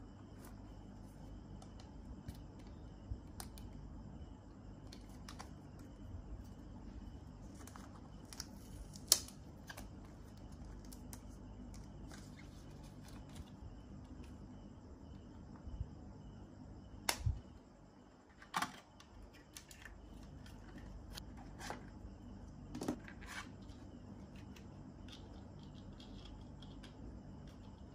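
Handling of an AirPods Pro charging case and its cardboard box inserts: scattered small plastic and cardboard clicks, taps and rustles. The sharpest click comes about nine seconds in, and a few more fall between about seventeen and twenty-three seconds.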